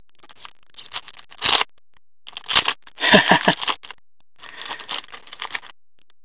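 Hockey card pack wrapper crinkling and tearing as it is opened by hand, then the cards rustling and scraping against each other as they are pulled out and handled, in several short irregular bursts.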